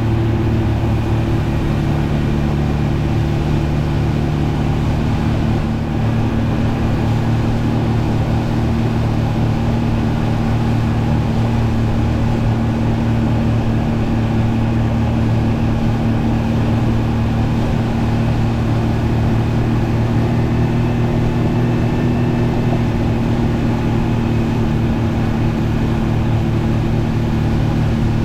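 Honda 40 four-stroke outboard motor running at a steady cruising speed, pushing an aluminium fishing boat along, its pitch holding level throughout.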